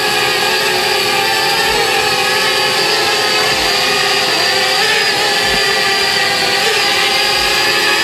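Parrot Bebop 2 quadcopter hovering close by: a steady, high whine from its four electric motors and propellers, with small pitch wobbles as it holds and shifts position.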